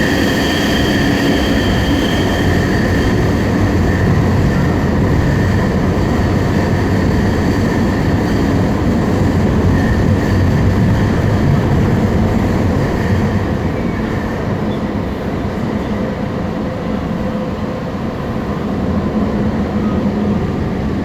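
Ottawa O-Train light-rail train (Alstom Citadis Spirit) running between stations, heard from inside the car. A steady rumble of wheels on rail and traction equipment, with a high whine that fades within the first few seconds. The noise eases off in the second half as the train nears the next station.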